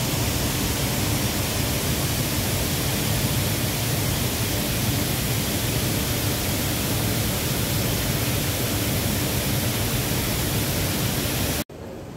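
A steady, even rushing noise with no distinct events, which drops off abruptly near the end to a much quieter background.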